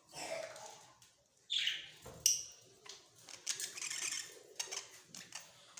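Budgerigars chirping and chattering: a few short separate calls, one sliding down in pitch about one and a half seconds in, then a run of rapid chatter.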